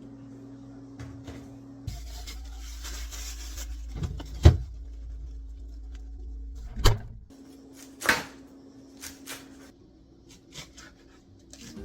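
Steady low hum, then handling noises: three loud knocks about four and a half, seven and eight seconds in, followed by a few lighter clicks.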